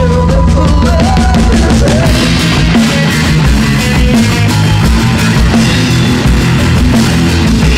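Rock band playing a song: electric guitar, bass guitar and a Tama drum kit, loud and steady, with a wavering melody line over the first couple of seconds.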